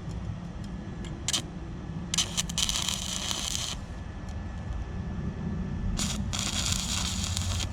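MIG welder tack-welding an exhaust pipe: two crackling bursts of about a second and a half each, one near the middle and one at the end, over a steady low rumble.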